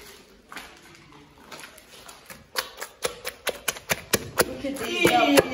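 A fast, regular run of sharp knocks, about four a second, starting about two and a half seconds in, with voices near the end.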